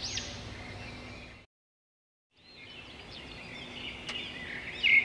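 Birds chirping in quick rising-and-falling calls. The sound drops out to silence for about a second partway through, then the chirping returns and grows louder near the end.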